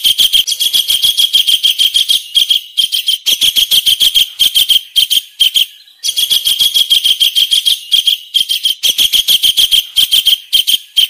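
Kingfisher calling: a long, fast rattle of sharp, high notes, about eight a second, broken by short pauses, with a brief gap about six seconds in. The rattle stops just at the end.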